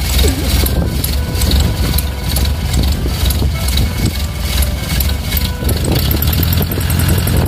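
Toyota Dyna truck's engine idling steadily, its exhaust note coming through a Capton aftermarket muffler.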